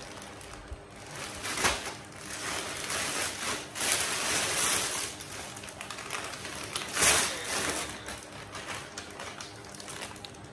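A parcel's packaging being opened by hand: rustling and tearing, with sharp louder rips just under two seconds in and about seven seconds in.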